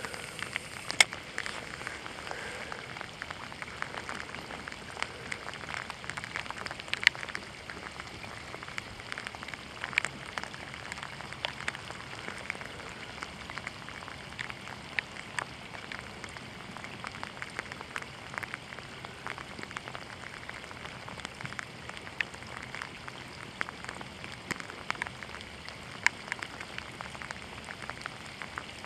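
Steady rain falling, a continuous patter with many scattered sharp taps of single drops, a few of them louder than the rest.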